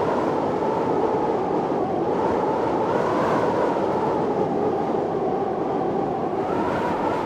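Storm wind blowing strong and steady, with a whistling tone that slowly rises and falls.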